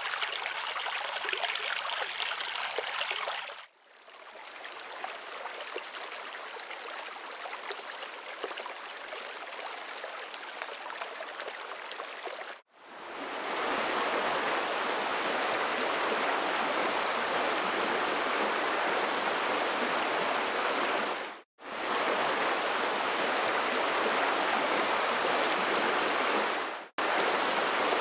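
Running water, like a stream or rushing flow, in several edited segments broken by brief silent cuts; from about 13 seconds in it is louder and fuller, building towards a flood.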